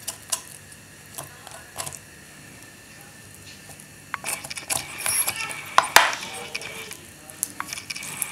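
Small knife scraping and clicking against raw chicken wing bone and a wooden cutting board as the meat is stripped down the bone. There are a few light taps at first, then a busier run of scrapes and clicks from about four seconds in, with a sharp knock of a knife on the board near six seconds.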